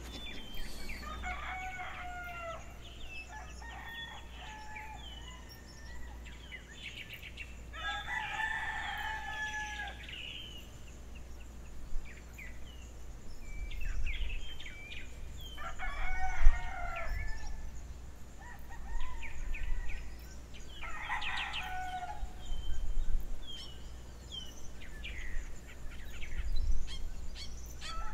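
Roosters crowing repeatedly in a morning field recording, about four long crows spaced several seconds apart, with smaller birds chirping between them over a low steady rumble.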